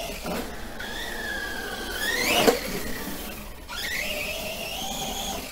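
Brushless motor of a Remo Hobby Dinosaurs Master 5 RC monster truck running on a 3S battery, whining and rising and falling in pitch with the throttle. There is a sharp knock about two and a half seconds in, and the whine drops out briefly before climbing again.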